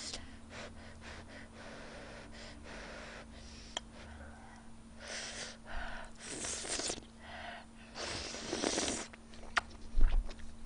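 Close-miked eating: a few hissing slurps of tteokbokki noodles, each under a second long, between quiet chewing and breaths, with a few small sharp clicks.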